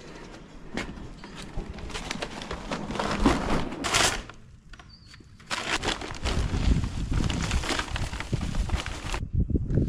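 Rustling and clattering handling noise from a heavy paper bag of lime being lifted and worked, with a pause of about a second near the middle.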